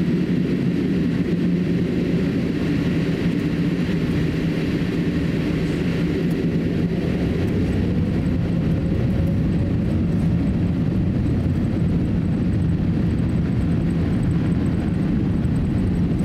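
Steady cabin noise of a Boeing 787-8 airliner taxiing, with the low hum of the engines at low thrust. A faint tone rises slowly about halfway through.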